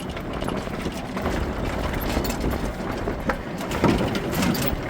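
Golf cart driving along a path: a steady low rumble with rattling and clicking as it goes, one louder knock near the end.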